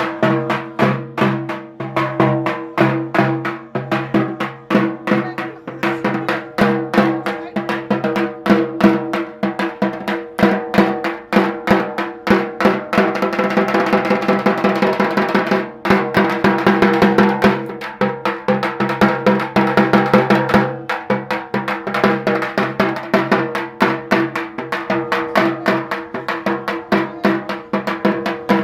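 Dhak, the Bengali barrel drum played with sticks, beaten in fast, driving strokes, with a sustained roll about halfway through.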